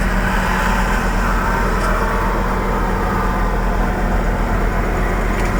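Ford 460 big-block V8 in a 1986 F350 pickup running steadily with a deep, even hum.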